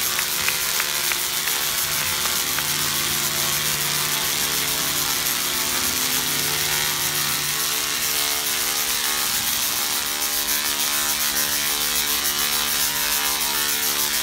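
Tesla coil firing, its arc giving a loud, steady electrical buzz with a rapid ratcheting crackle.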